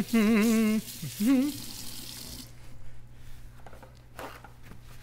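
A kitchen tap runs while hands are washed under it, and a voice sings a few long, wavering held notes over it in the first second and a half. The water shuts off about two and a half seconds in, followed by faint clicks and handling sounds.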